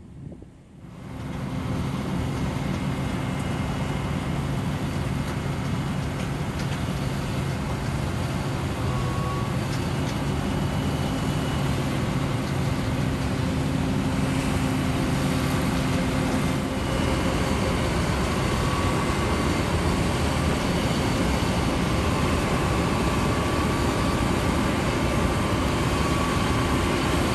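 John Deere 9510 combine harvesting oats close by: its engine and threshing machinery make a loud, steady drone with a few steady whining tones through it, starting about a second in.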